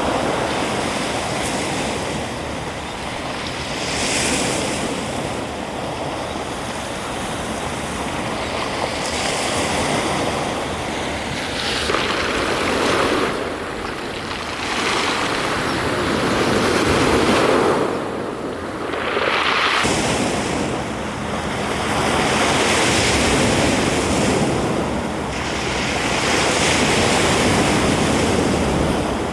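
Sea waves breaking and washing in, the surf swelling and falling away every few seconds, with some wind.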